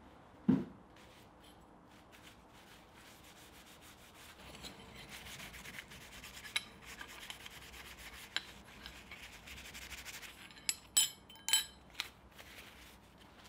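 Cloth rag rubbing linseed oil onto a forged metal handle on an anvil, a soft scrubbing hiss that starts a few seconds in. There is a dull thump about half a second in, and a few sharp clicks near the end.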